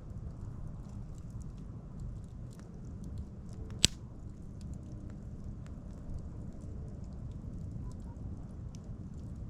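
Wood bonfire crackling, with scattered small snaps over a low steady rumble and one loud sharp pop a little under four seconds in.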